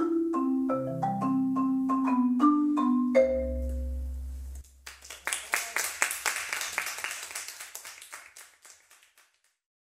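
Marimba duet playing the last bars, a run of quick mallet notes ending on a deep low note about three seconds in. Then comes a quick series of unpitched percussion strikes with a bright, noisy ring that fades out over about four seconds.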